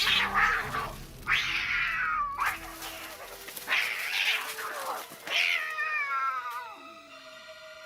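Street cats caterwauling: four long, wavering yowls, each sliding down in pitch at its end. These are the threat calls of cats squaring off to fight.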